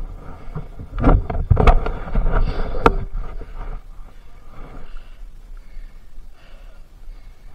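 Enduro motorcycle running over rough ground, with a cluster of loud knocks and clatter about one to three seconds in, then settling to a quieter, steady run.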